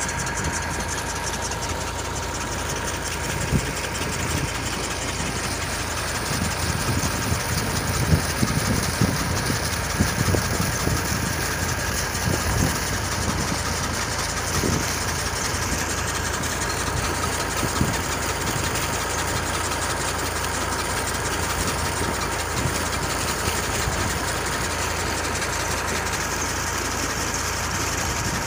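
Diesel engine driving a new tube well's pump, running steadily while the well pumps water, with a few sharper knocks in the first half.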